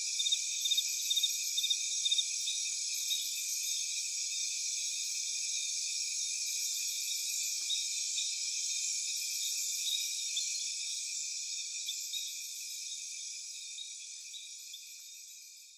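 A steady chorus of crickets chirping, with repeated high pulsed chirps, fading out over the last few seconds.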